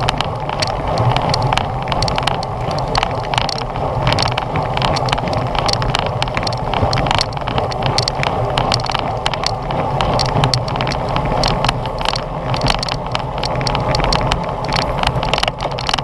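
Riding noise picked up by a camera on a racing bicycle at speed: a steady rush of wind and tyres on the road, with frequent rattling clicks throughout.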